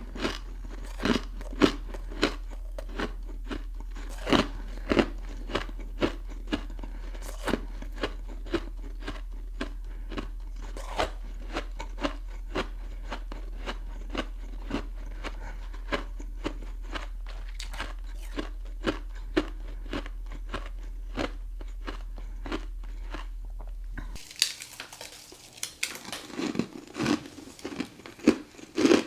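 Crunchy frost chunk being chewed close to the microphone: a fast run of crisp crunches, two or three a second, over a faint low hum. Near the end the hum drops away and louder, wetter bites follow.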